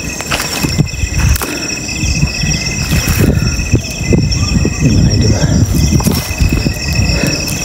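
Insects chirring steadily at night in several high, even tones, some pulsing, over a loud, irregular low rumble of movement and handling noise.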